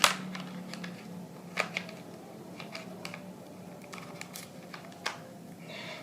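Plastic parts of a DIY toy truck kit clicking and tapping as they are fitted together by hand: a sharp click at the start, then scattered lighter clicks and taps.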